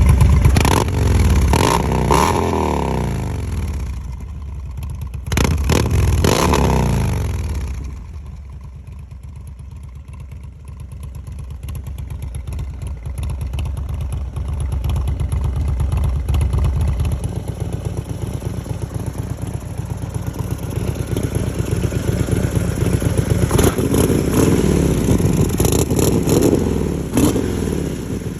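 2016 Harley-Davidson Dyna Low Rider S's Twin Cam 110 V-twin running through an MCJ 2-into-1 exhaust set to its closed, quiet mode. It is revved and falls back twice in the first seven seconds, settles into a steady idle, then is revved again in a run of blips near the end.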